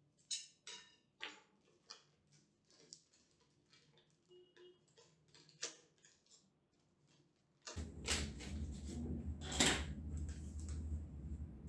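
A paper courier envelope slit open with a knife and handled: a run of sharp crackles and rustles. About eight seconds in, a steady low hum starts suddenly, with louder crinkling of packaging over it.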